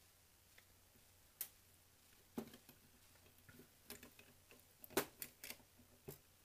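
Scattered light clicks and taps of a screwdriver and the metal model locomotive chassis being handled, about seven in all, the sharpest one about five seconds in.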